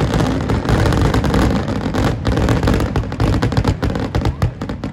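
Fireworks: aerial shells bursting in a dense, loud barrage of booms and crackling, the bangs thinning out and dying away near the end.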